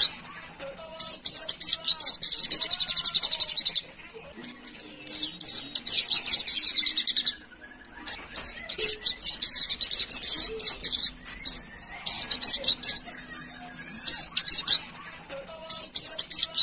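Olive-backed sunbird (sogon) singing: bursts of very rapid, high, chattering trills, each lasting one to three seconds, repeated with short pauses between them.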